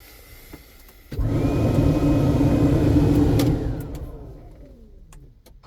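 A motor starts suddenly about a second in, with a whine, runs steadily for about two seconds, then spins down with falling pitch until it stops.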